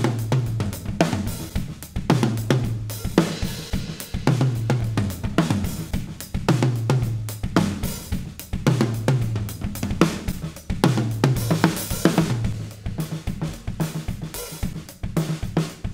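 Drum kit playing a tribal-style groove built on the toms, each tom hit ringing low and sinking in pitch, over a steady wash of cymbals.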